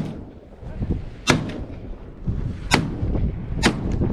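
Three shotgun blasts from duck hunters firing at ducks overhead, coming about a second and a half apart and then closer together. Wind rumbles on the microphone throughout.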